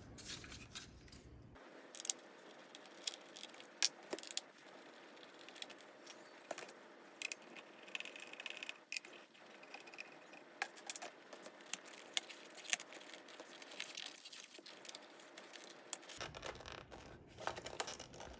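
Scattered clicks, taps and light scrapes of plastic and metal parts being handled as the steering-wheel control switches and their wiring are worked loose from a BMW E46 steering wheel.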